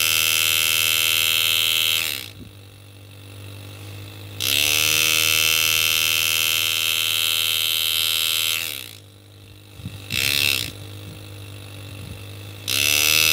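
Rebuilt piston-driven, foot-controlled engraving handpiece buzzing as its graver cuts into a metal plate. It runs in three long bursts and one short one, and its pitch rises each time the pedal brings it up to speed and falls as it stops. A steady low hum sits underneath throughout.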